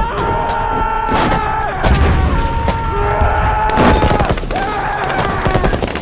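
Battle sound-effect mix: a low rumble of booms and sharp gunshot cracks, over which long held tones sound three times, each a second or two long and sliding down in pitch as it ends.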